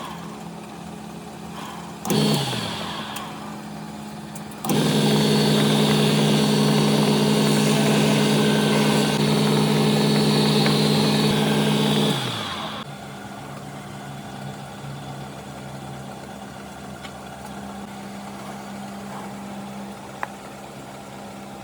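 Electric woodworking power tool motor. It runs briefly and spins down about two seconds in, then runs steadily for about seven seconds and spins down with a falling pitch. A fainter steady hum remains afterwards.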